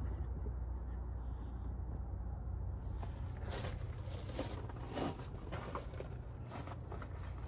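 Faint rustling and light taps of someone moving about and reaching into an old car's engine bay, over a steady low rumble.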